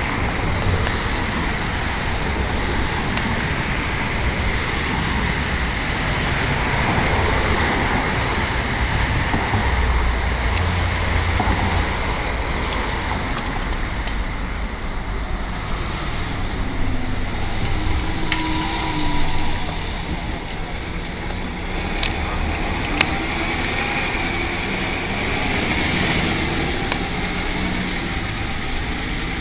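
City street traffic with a transit bus's engine running as the bus drives past and pulls away, a steady low rumble under the road noise. A couple of short sharp knocks come in the later part.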